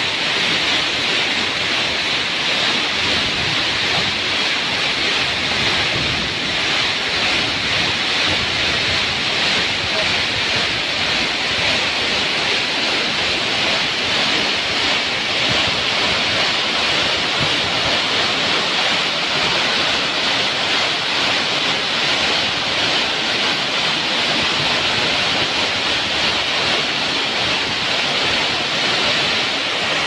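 Waterfall pouring down a rock face and splashing onto the rock slab below, a loud, steady, hissing rush.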